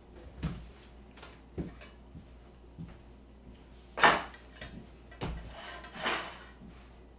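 Dishes and cutlery clinking and knocking on a table: a few light knocks, then two louder clatters about four and six seconds in.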